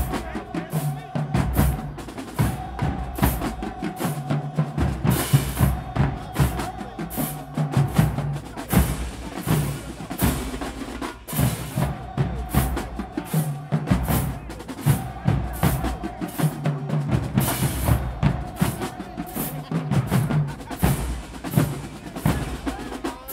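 Marching band drumline playing a cadence: snare drums, tenor drums and pitched bass drums. Crash cymbals come in now and then.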